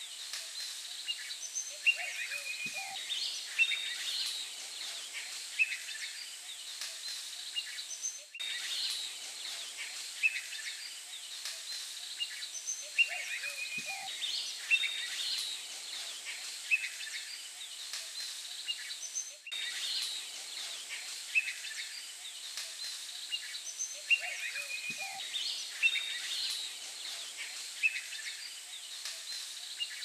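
Nature ambience of assorted birds chirping and calling over a steady high hiss. The same stretch of sound loops about every eleven seconds.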